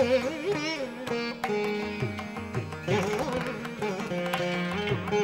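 Instrumental Carnatic-style background music: a plucked string melody with bending, gliding notes over a steady low bass pattern.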